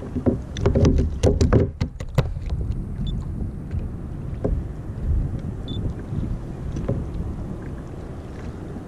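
Steady low wind and water noise around a sit-on-top kayak at sea, with a quick run of sharp clicks and knocks during the first two seconds from handling gear and the catch, then a few lighter ticks.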